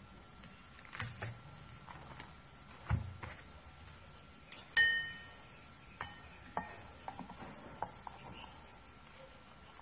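Metal parts of an automatic transmission reverse clutch drum handled on a workbench. A few light clicks, a dull knock about three seconds in, and a short metallic ring about five seconds in, followed by light taps and scrapes as a pick is worked around the drum's inner edge.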